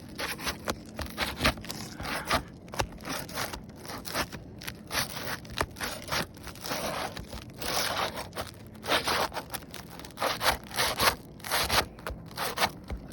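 A thin flat pry tool scraping and working under asphalt roof shingles, with a run of irregular scrapes, rustles and crackles as the shingles are pried up to get at the nails.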